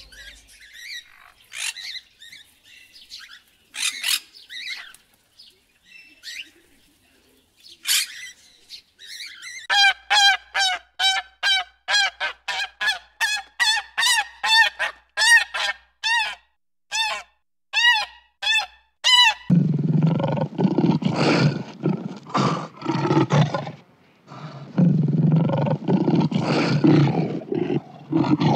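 Budgerigars chirping and chattering. Then a black swan calls over and over, about two honking calls a second, for some ten seconds. Then lions give low, rough growls in two long stretches.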